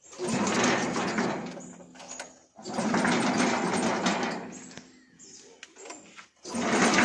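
Small Honda petrol engine on a cement mixer being pull-started: three pulls a few seconds apart, each one a sudden burst of engine noise that fades away over a couple of seconds.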